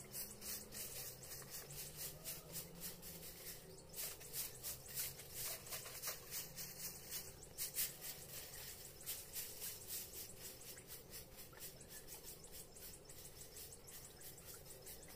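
Short stiff straw broom sweeping the ground in quick, repeated scratchy strokes, faint.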